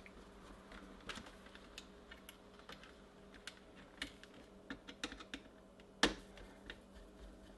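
Scattered small metallic clicks and taps of a screwdriver working the screw terminals on an intercom speaker's circuit board as the wires are tightened under the screw heads, with one louder click about six seconds in.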